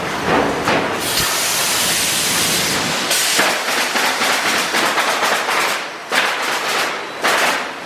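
Woodpecker nailer running: a steady hiss for about two seconds, then a rapid run of sharp firing strikes for about three seconds, followed by a few separate louder bursts near the end.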